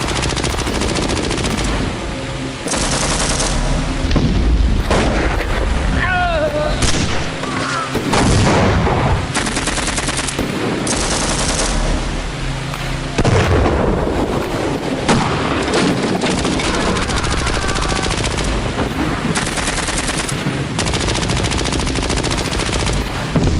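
Battle sound effect: continuous gunfire, with rapid machine-gun bursts and single shots overlapping, and occasional booms.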